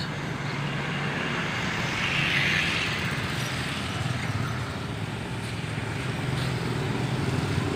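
Street traffic: the engines of passing motorbikes and a van over steady road noise, with a louder pass about two seconds in.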